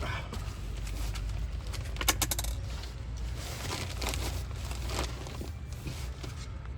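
Handling noise from work on the wiring: rustling and scattered small clicks, with a quick cluster of sharp clicks about two seconds in, over a steady low rumble.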